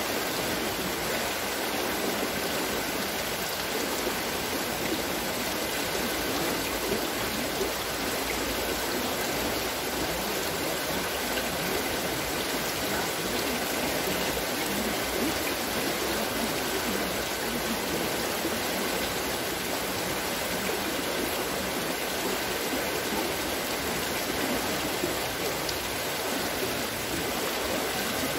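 Water splashing and pouring steadily from a wooden water-scooping wheel (Wasserschöpfrad) as it turns, an even rushing with no breaks.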